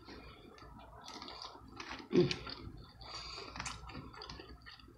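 Cooked Dungeness crab being pulled apart by hand: small wet clicks, crackles and squishes of shell and meat, with one louder moment about two seconds in.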